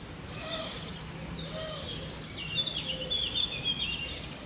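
Small birds chirping, with a quick run of high chirps in the second half, over a faint steady low hum.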